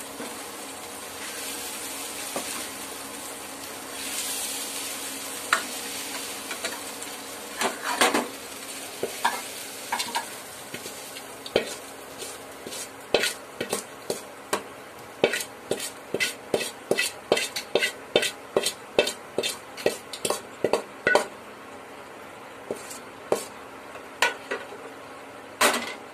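Taro root pieces sizzling in oil in a kadai as a ladle stirs them. Then a run of sharp metal clicks and scrapes, one or two a second, as the ladle scrapes the roast out of the kadai into a steel bowl.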